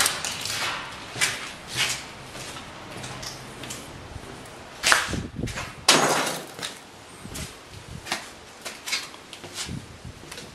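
Footsteps on a floor strewn with plaster debris and grit, with two louder knocks about five and six seconds in.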